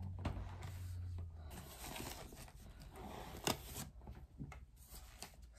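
Thin plastic packaging rustling and crinkling as a wrapped item is handled and lifted out of its box, with a sharper crackle about three and a half seconds in.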